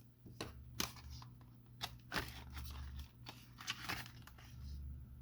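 Cardboard and paper packaging of a smartphone box being handled: crinkling and rustling with several sharp clicks and taps as the contents are taken out.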